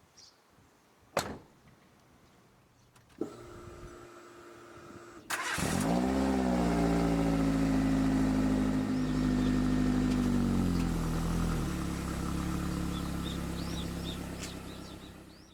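Subaru R2 kei car's four-cylinder engine being started. A thump and a click come first, then the starter cranks briefly and the engine catches with a short flare. It settles into a fast steady idle that steps down to a lower idle a few seconds later.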